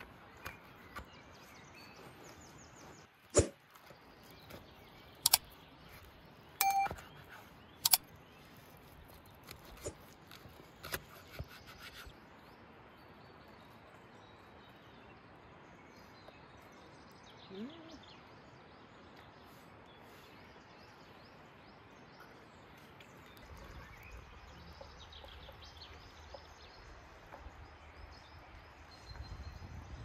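Quiet outdoor ambience with a steady low hiss, broken by about five sharp clicks and knocks in the first twelve seconds. A low rumble comes in during the last several seconds.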